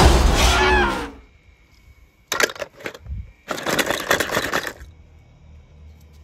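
A film soundtrack cuts off about a second in; then die-cast metal toy cars clatter and rattle in a plastic bowl, in a short burst and then a longer one of about a second.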